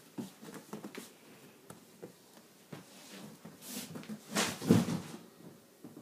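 Cardboard and styrofoam packaging of a large box being handled: a few light knocks and rustles, then a louder rubbing scrape lasting about half a second, some four and a half seconds in.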